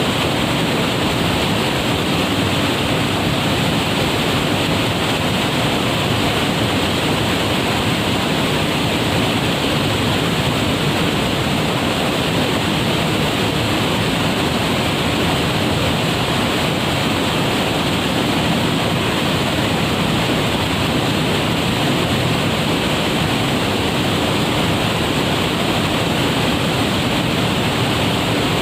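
A waterfall rushing in a loud, steady wash of water noise.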